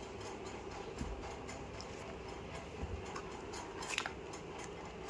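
Faint clicks and handling noises of a small cardboard watch box being opened by hand, with a sharper click about four seconds in.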